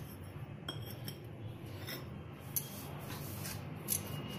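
Fingers spreading and mixing dry maize and wheat flour on a steel plate: a faint rubbing, with a few light clicks against the metal.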